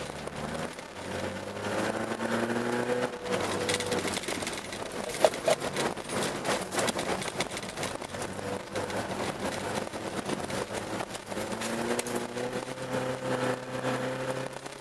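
Car engine heard from inside the cabin while driving on an ice track, rising in pitch as it accelerates early on and again near the end. In between, a rougher stretch of rattling and knocking, with one sharp knock about five seconds in.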